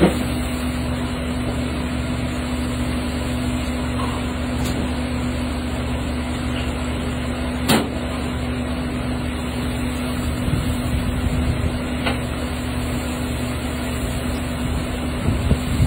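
Steady low hum and rumble of commercial kitchen ventilation, the exhaust hood fan over the gas range, with a constant tone in it. A single sharp click about eight seconds in.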